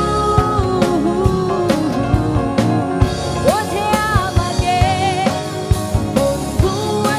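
A Bengali pop song: a singing voice over a drum kit with a steady beat and other instruments.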